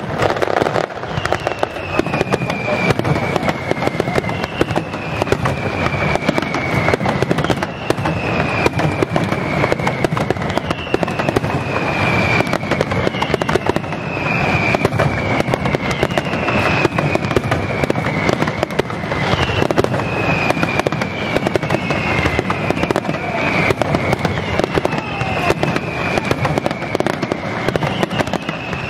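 Large aerial fireworks display: shells bursting in dense, continuous crackling bangs, with a string of falling whistles coming every second or two.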